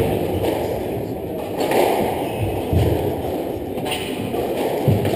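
Steady murmur of spectators chatting in a large hall, with a few dull thuds from the squash court, about one every two seconds.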